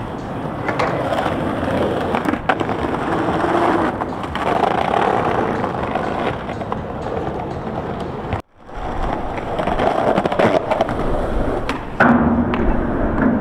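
Skateboard wheels rolling over rough pavement with scattered clacks of the board, a brief break about two-thirds through, then a sharp loud clack near the end as the board is popped up onto a ledge.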